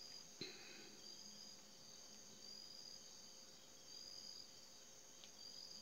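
Near silence: faint room tone with a thin high-pitched trill that swells about every second and a half, and one soft click about half a second in.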